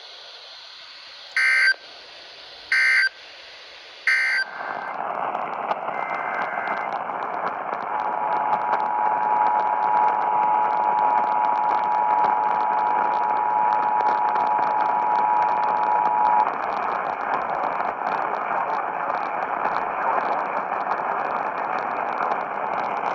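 Emergency Alert System end-of-message: three short electronic data bursts about a second and a half apart, then steady radio static hiss. About eight seconds in, a two-tone EAS attention signal sounds steadily over the hiss for about eight seconds and then stops.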